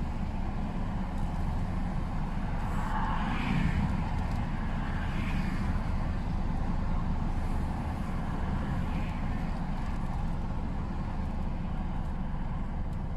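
Lorry engine running steadily at low speed as the truck creeps forward, a constant low rumble heard from inside the cab.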